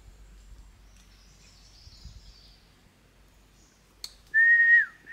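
Quiet forest background, then about four seconds in a click followed by loud whistled notes, each held level and then sliding down in pitch, repeating about twice a second.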